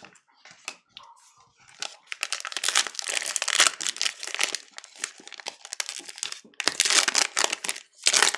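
A trading card pack's wrapper being torn open and crinkled by hand: light rustles at first, then dense crinkling and tearing from about two seconds in, loudest near the end.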